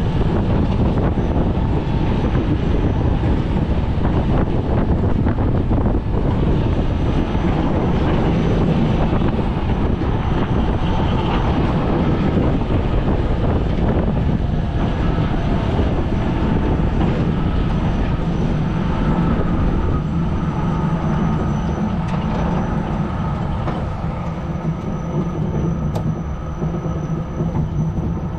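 Alpine coaster cart's wheels rumbling and rattling along its steel rail track at speed. A faint whine joins in during the later part, and the sound eases a little near the end as the cart slows.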